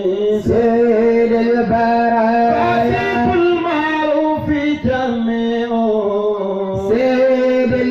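Male voice singing a devotional chant in praise of the Prophet Muhammad, drawing out long held notes that bend and ornament in pitch over a steady low drone tone.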